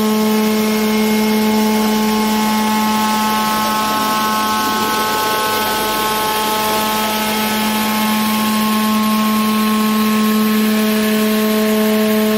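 CNC glass-milling machine running steadily as its diamond milling cutters grind glass under a water coolant spray. It gives a steady, even-pitched motor whine with overtones over a constant hiss.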